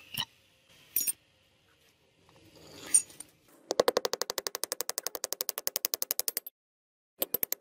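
A few single metal knocks, then a small hammer peening what looks like a red-hot steel rivet in the cleaver blade on a steel anvil block. It is a fast, even run of metallic blows, about ten a second, that stops briefly near the end and starts again.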